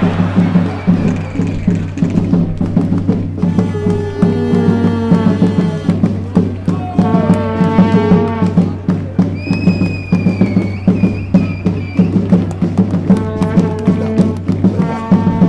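Background music with a steady percussive beat and a melody that comes and goes.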